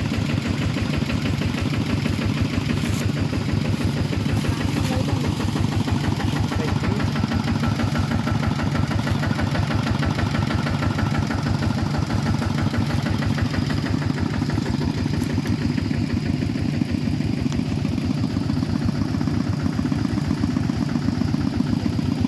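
A two-wheel walking tractor's single-cylinder diesel engine running steadily.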